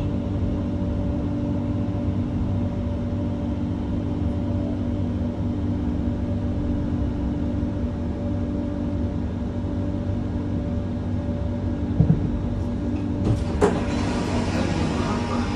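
Metro train running, heard from inside the car: a steady rumble with a constant hum. A couple of knocks come about three-quarters of the way through, and a brighter hiss joins soon after.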